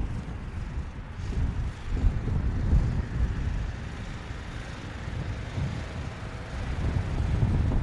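Mercedes-Benz GLB 200 d's four-cylinder diesel engine pulling the SUV up a steep rocky slope off-road, a low uneven rumble that grows louder near the end as it comes closer.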